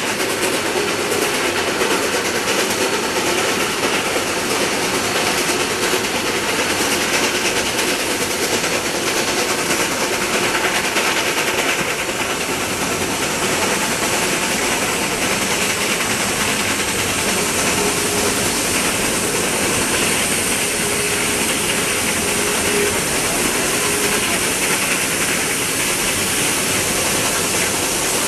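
Two Shay geared steam locomotives hauling a long train of coaches upgrade: a steady, dense rush of locomotive exhaust and hissing steam mixed with wheel noise from the cars.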